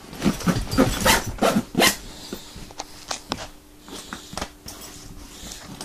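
Nylon paramedic jump bag being handled and zipped open: a quick run of rustling zipper strokes over the first two seconds, then quieter clicks of buckles and fabric over a faint steady hum.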